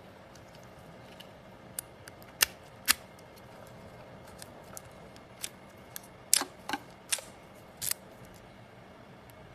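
About a dozen sharp little clicks and clacks at irregular intervals over a faint steady hum: a key and lock parts being handled.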